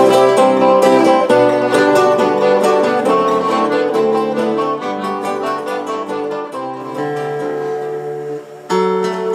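Live acoustic band playing an instrumental passage led by acoustic guitar, with quick picked notes. Near the end a louder chord comes in.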